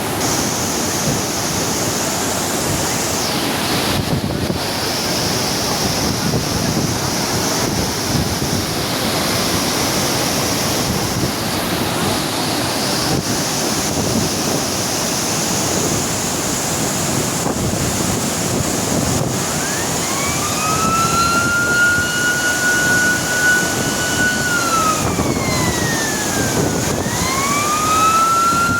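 Water rushing steadily through a dam's spillway gates. About two-thirds of the way in, a siren-like wailing tone joins it: it rises, holds, falls, then rises and holds again near the end.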